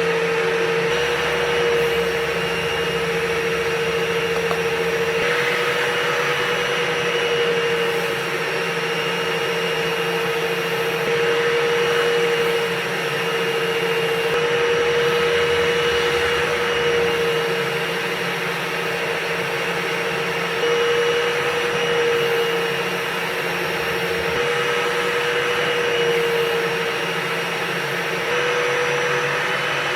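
Motorized dryer vent cleaning equipment running without a break, with a steady whine that wavers slightly in pitch now and then.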